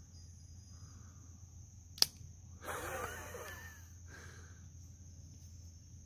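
A single sharp click about two seconds in as the blade of a stag-handled Cobratec folding pocketknife is opened, followed by about a second of softer rough handling noise. Crickets trill steadily in the background.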